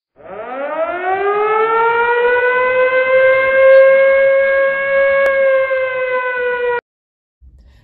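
A warning siren winding up, its pitch rising over the first two seconds, then holding one steady tone before cutting off suddenly near the end.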